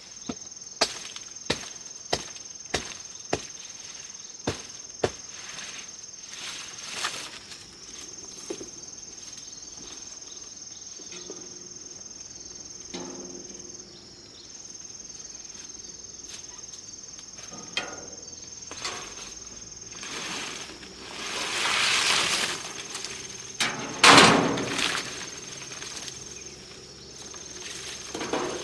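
Insects droning on one steady high note, with brief breaks in it. A run of about eight sharp knocks sounds in the first five seconds, and near the end there is a rustling swell and then one loud knock.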